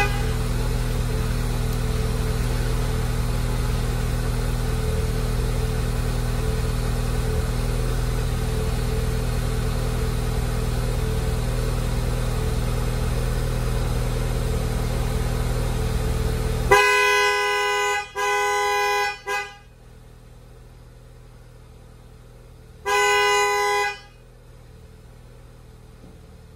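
Ford Fiesta ST's engine idling with a steady hum, which stops abruptly about two-thirds of the way in. Then the car horn sounds three times, triggered from the newly fitted Sparco steering wheel's horn button as a check that it works: two blasts of about a second back to back, and a third about four seconds later.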